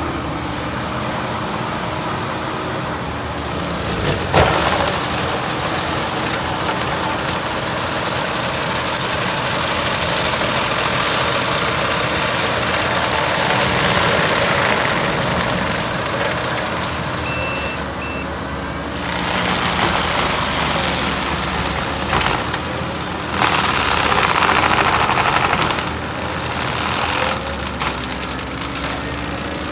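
Kubota skid steer's diesel engine working hard while a forestry mulcher head grinds through brush and trees, in loud surges, with a sharp crack about four seconds in. Two short reversing beeps sound about halfway through.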